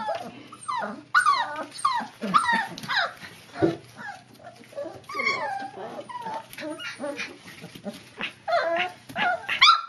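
Young puppies yipping and whining: a rapid string of short, high calls that mostly fall in pitch.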